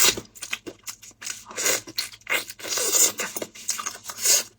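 Close-up eating and food-handling noises: a quick, irregular run of short scraping and crunching sounds.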